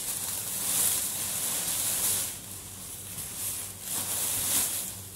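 Thin plastic carrier bags rustling and crinkling as hands rummage through them, in three surges with short pauses between.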